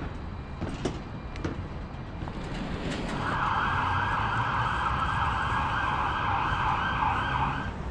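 An emergency-vehicle siren on a fast yelp. It starts abruptly about three seconds in and cuts off shortly before the end.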